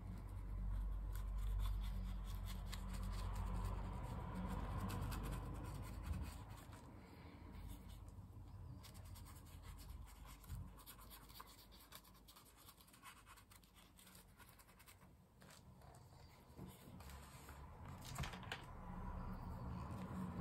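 Faint scratching and light ticking of a fine paintbrush working paint into a textured collage paper page, with a low rumble during the first six seconds. Near the end come a few louder knocks and rustles as a small paint bottle is picked up and handled.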